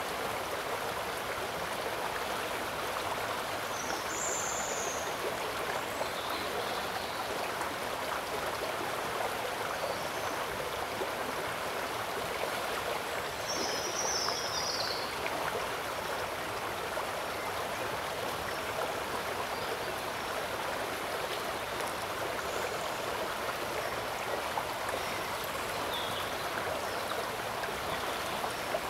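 Steady rush of running water, even throughout. A couple of short high chirps stand out above it, about four seconds in and again about fourteen seconds in.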